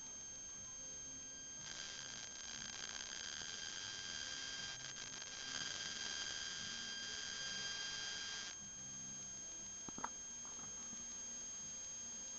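Homemade negative ion generator giving a steady high-pitched whine. From about two seconds in to about eight and a half, a hiss of corona discharge rises and grows louder while its electrode is held beside the candle flame. A single small click follows near ten seconds.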